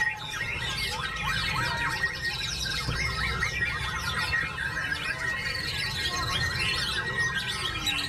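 White-rumped shamas (murai batu) singing over one another: a dense, fast stream of whistled glides and chattering phrases, with a low rumble beneath.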